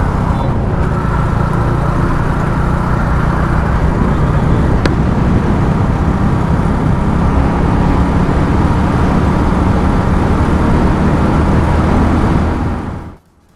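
Single-cylinder Benelli Leoncino 250 motorcycle running steadily at highway speed, engine and road noise together, gaining a little speed. The sound fades out near the end.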